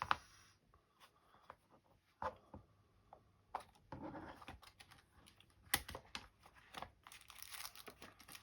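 Faint handling of product packaging as it is opened: scattered light clicks and taps, then crinkling near the end.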